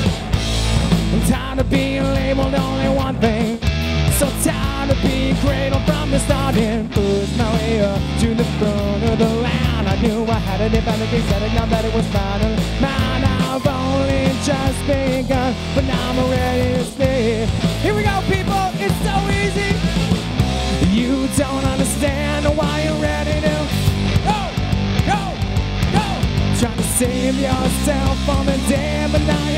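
Live rock band playing loudly: electric guitars, bass and a drum kit keeping a steady beat, with a male singer's voice over the band.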